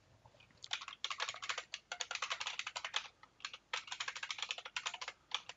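Computer keyboard being typed on: a quick run of keystrokes starting about half a second in, with a short pause near the middle.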